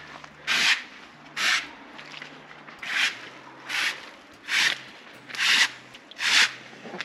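Rough scraping strokes on a wet outdoor carpet, one about every second, with a short gap about two seconds in.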